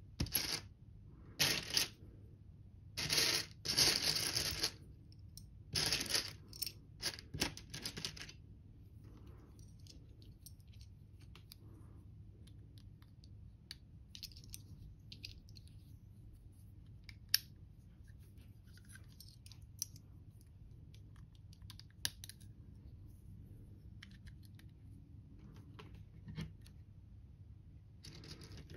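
Loose LEGO pieces clattering in a tray as a hand rummages through them, in several bursts over the first eight seconds. Then quieter handling with small plastic clicks as bricks are pressed together, with one sharp click about halfway through.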